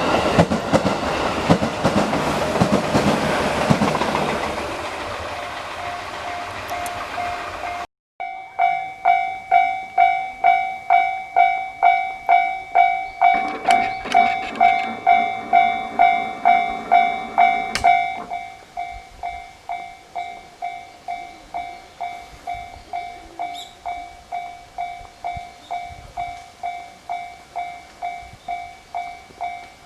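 A train passing over the crossing, its rushing noise fading away over the first few seconds. After a cut, a Japanese level-crossing warning bell dings steadily about twice a second, dropping in level about two-thirds of the way through.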